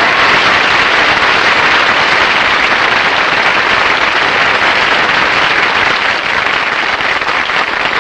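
Studio audience applauding, a dense steady clapping that thins out near the end into scattered single claps.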